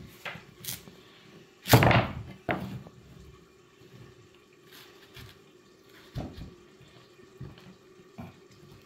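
Kitchen knife cutting through cold, partly frozen pumpkin on a wooden board: scattered crunching cuts and knocks, the loudest about two seconds in. The frozen flesh makes the blade go through with difficulty.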